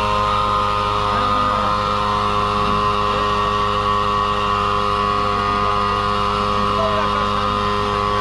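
A small motor humming steadily at one even pitch, with faint voices behind it.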